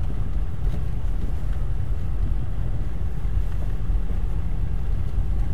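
Steady low rumble of a Lada Kalina wagon driving slowly in first gear: engine and road noise heard from inside the cabin.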